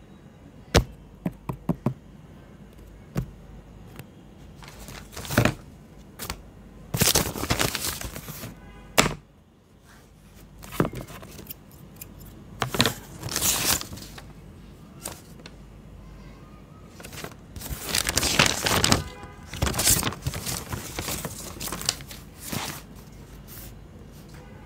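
Paper being handled and cut with large scissors: rustling and crinkling sheets and scissor cuts, with a few sharp taps near the start.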